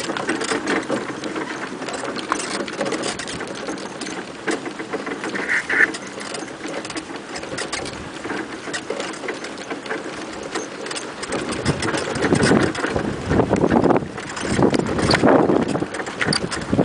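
Dog training cart rolling fast over a rough dirt trail behind a running sled-dog team: a steady rattling and rumbling with many small knocks, growing louder and more jolting in the last few seconds.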